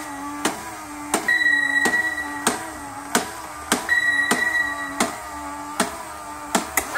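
Electronic sound effects from a toy submarine's control panel: a steady low hum with a sharp electronic tick about every two thirds of a second, and a high beep lasting about half a second that sounds twice, the last two ticks close together near the end.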